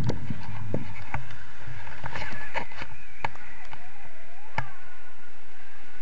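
Wind rushing over the camera's microphone as a tandem paraglider lifts off, with scattered sharp knocks and clicks from the harness and camera mount, most of them in the first three seconds.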